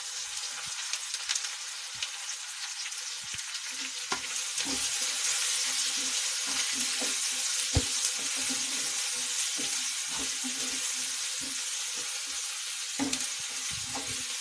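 Chopped onions sizzling in hot oil in a nonstick kadhai, with a wooden spatula scraping and knocking against the pan as they are stirred. The sizzle grows louder about four seconds in.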